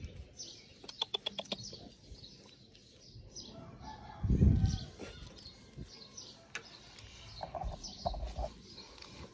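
Small birds chirping repeatedly in the background, with a quick run of clicks about a second in and a loud low thump near the middle.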